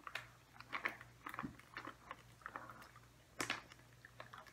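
A husky chewing a soft dog chew treat: faint, irregular wet clicks and crunches of the jaws, with one louder crunch about three and a half seconds in.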